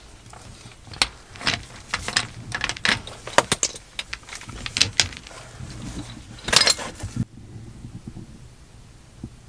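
Metal clinks and rattles of hand tools and a brass flare fitting being worked on copper gas tubing: a string of sharp clicks that stops abruptly about seven seconds in. A low steady hum sits underneath.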